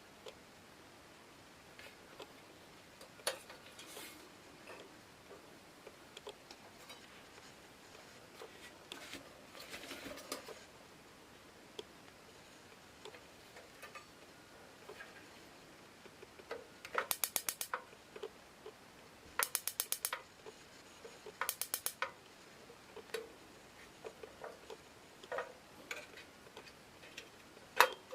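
Small clicks and taps of lantern parts being handled, with three short bursts of rapid, evenly spaced clicking about two-thirds of the way through.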